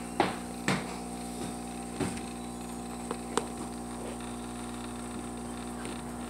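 A steady electrical hum made of several tones, with a few sharp knocks or taps in the first half, the two loudest in the first second.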